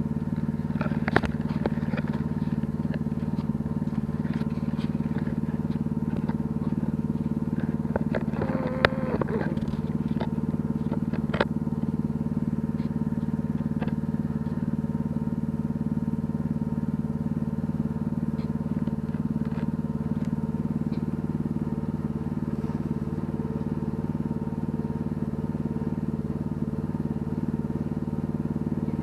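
Small engine of an ATV and backhoe rig running steadily at an even speed, with a few sharp metallic knocks, the loudest about nine seconds in, and a brief wavering whine around then.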